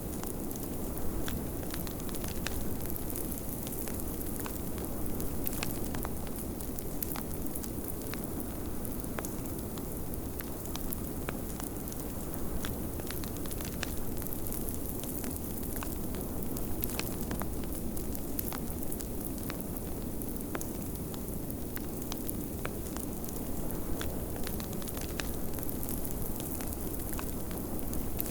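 A fireplace fire crackling, with frequent sharp pops scattered irregularly, over a steady rushing blizzard wind.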